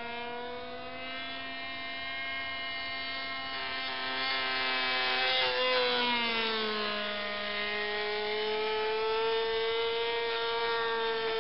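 Glow-plug engine of a radio-controlled model airplane in flight, a steady high-pitched buzz. It grows louder toward the middle, then its pitch drops about six seconds in.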